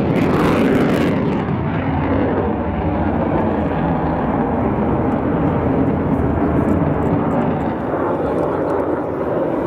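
Mitsubishi F-2 fighter flying past with its single F110 turbofan jet engine running: a loud, steady rumble whose high hiss fades after the first second or two as the jet pulls away.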